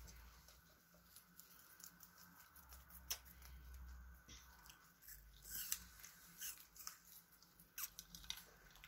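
Guinea pigs faintly chewing and nibbling food, a scatter of small crunching clicks over near silence.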